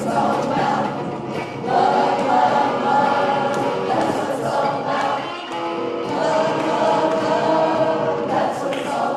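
A group of people singing a song together, accompanied by a strummed electric guitar.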